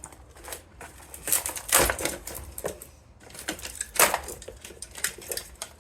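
Irregular clicking and clattering of loose parts from a dismantled electric organ being handled and shifted, with louder knocks about two seconds in and again about four seconds in.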